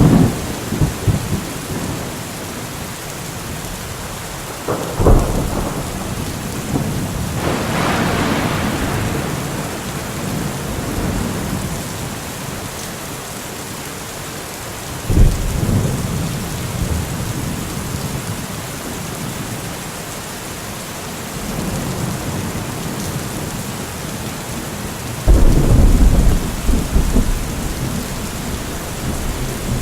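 Steady heavy rain with thunder: sudden loud claps and low rumbles about 5, 15 and 25 seconds in, rolling on after each.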